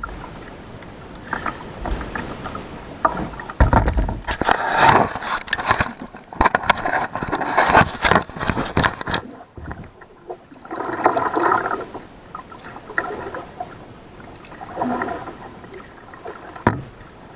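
Kayak paddling: the paddle swishes and splashes through the water in uneven strokes every couple of seconds, with scraping and a few knocks on the hull.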